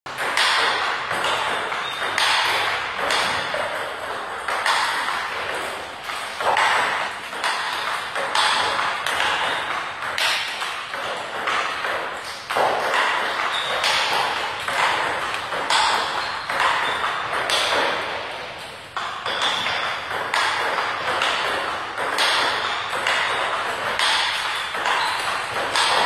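Table tennis ball struck back and forth by bats and bouncing on a Turbo Jet table in a practice rally: a quick, steady run of sharp hits.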